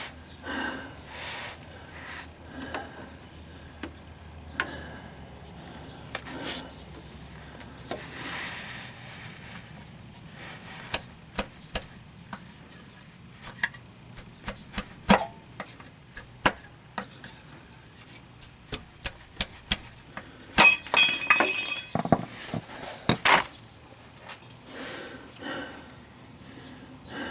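Metal tools and parts clinking and clicking in scattered, irregular strikes, with a flurry of ringing metallic clinks about two-thirds of the way through.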